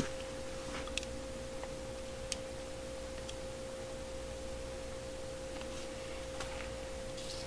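A steady hum at one pitch in the room, with a few light clicks as small hand tools are handled.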